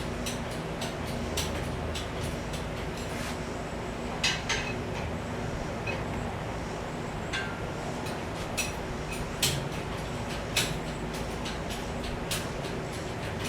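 Scattered sharp clicks and knocks at irregular times over a steady background hum, from hand work on the truck.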